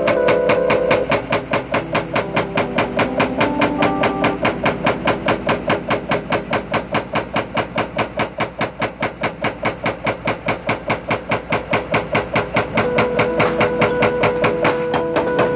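Rapid, evenly spaced mechanical hammering of a powered breaker at about five blows a second, breaking ground or rock for a foundation excavation. It dips a little in the middle and picks up again toward the end.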